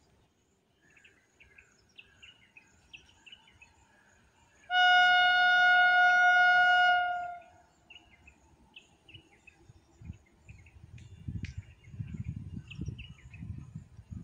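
A train horn sounds one long steady blast, about two and a half seconds, over birds chirping. Low rumbling comes in during the last few seconds as a train approaches.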